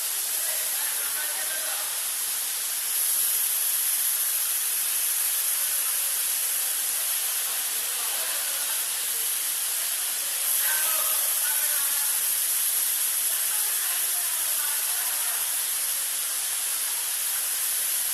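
Waterfall rushing steadily, a constant hiss of falling water that steps up slightly in level a few seconds in and again about ten seconds in.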